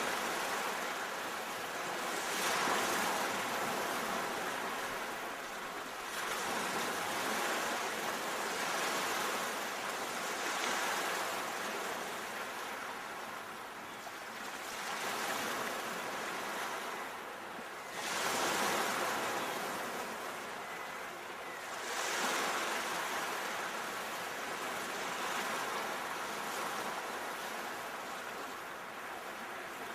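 Sea waves washing ashore, the surf rising in a fresh surge every three to five seconds and easing off in between.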